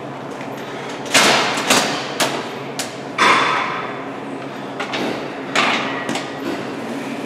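Plate-loaded 45-degree leg press sled, loaded with iron plates, clanking and knocking as it is unracked and starts moving on its rails: several sharp metal knocks at uneven spacing over a steady background hum.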